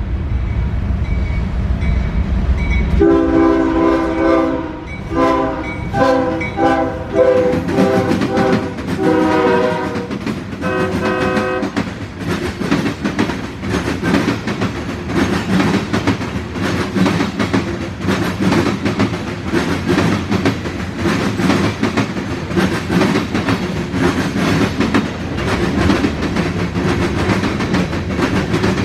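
Two GE ES44DC diesel locomotives pass with a heavy low rumble, then sound their horn chord: one long blast followed by a quick string of shorter blasts over about nine seconds. The freight cars then roll by with a steady rattle and clickety-clack of wheels over the rail joints.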